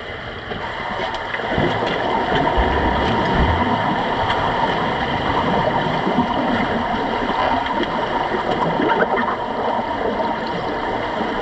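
Water churned by underwater rugby players' fins and bodies, heard underwater: a dense rushing and bubbling that grows louder about two seconds in and then holds, over a steady hum.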